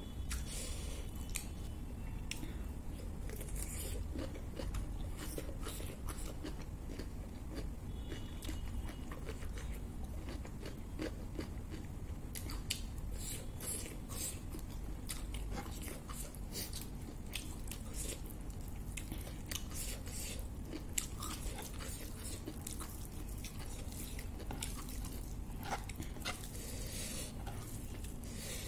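Close-up eating sounds: chewing with crisp crunches of fried papad, and sharp crackles as papad is crumbled into rice by hand, irregular and continuous over a low steady hum.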